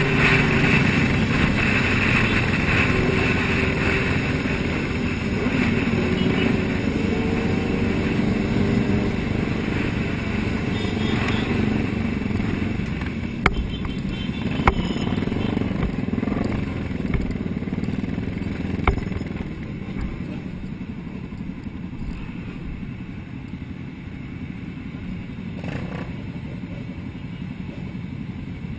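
A large group of motorcycles running and revving on the road, heard from among the riders. A few sharp clicks come around the middle, and the engine noise eases off toward the end.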